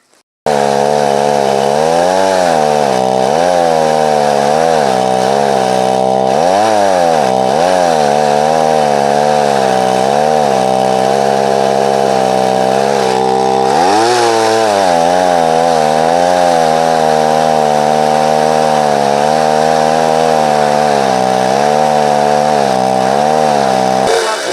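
Gas chainsaw with a 14-inch bar running at high revs into a tree trunk about 12 inches across, its engine pitch sagging and recovering again and again as the chain loads up in the wood. It comes in suddenly about half a second in and dips briefly near the end.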